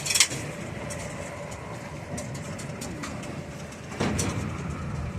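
Water taxi's engine running steadily as a low rumble with a faint steady tone. A brief hiss comes right at the start, and the sound gets louder about four seconds in.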